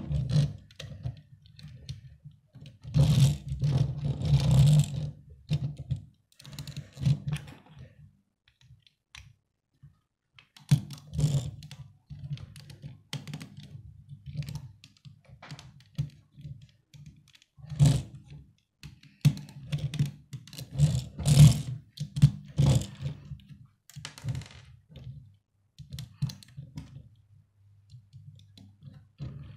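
Plastic Lego bricks being handled and pressed onto a small model car, with irregular clicks, rattles and knocks against a wooden tabletop, busier in a few short clusters.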